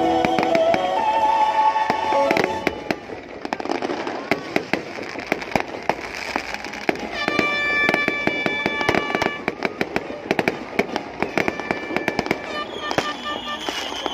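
A fireworks display: many shells bursting and crackling in quick, irregular succession, over music from a sound system. The music's melody is loud at first, then drops back after about two seconds as the crackling takes over.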